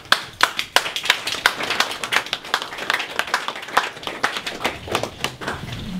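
A small audience applauding, the separate hand claps dense at first and thinning out near the end.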